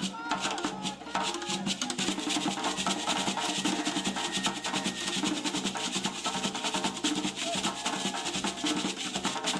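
Traditional West African drumming: fast, dense drum strokes with other percussion, keeping up a driving rhythm for a dance.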